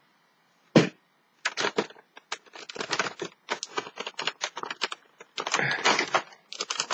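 A cardboard advent calendar door being pried open and the wrapped chocolate inside pulled out: one sharp click about a second in, then a long run of irregular crackling and crinkling of cardboard and wrapper.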